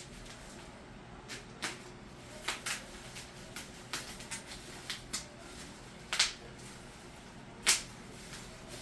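Boxed figures in plastic protector cases being handled and lifted out of a cardboard shipping box: scattered light clicks and rustles, with two sharper knocks in the second half.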